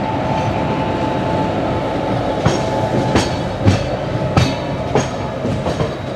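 Passenger train rolling along, a steady rumble of the moving coach with a thin whine that fades out about halfway. In the second half the wheels clack sharply over rail joints about five times, at uneven spacing.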